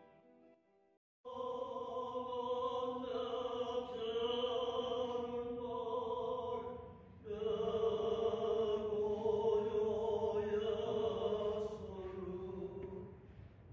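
Slow, chant-like singing in long held notes that waver slightly and glide slowly between pitches, starting suddenly about a second in after a moment of silence.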